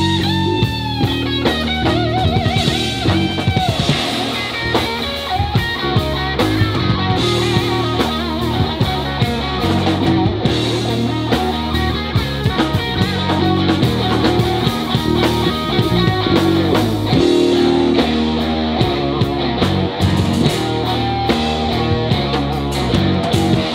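Live blues-rock band playing an instrumental passage: electric guitar lead with bent and wavering notes over electric bass and a drum kit.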